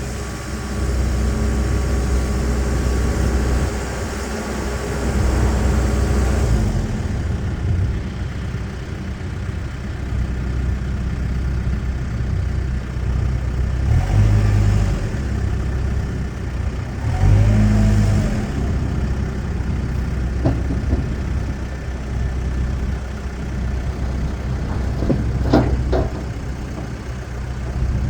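Case 590 Super M Series 3 backhoe's diesel engine running, rising in revs briefly twice partway through, with a few sharp knocks near the end.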